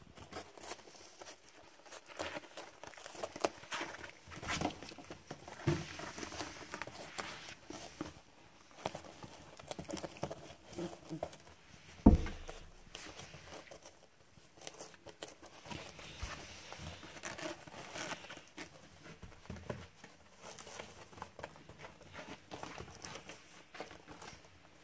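Four-week-old puppies scrabbling and clambering about on crinkly bedding: irregular pattering, scratching and rustling throughout. A single sharp knock about halfway through is the loudest sound.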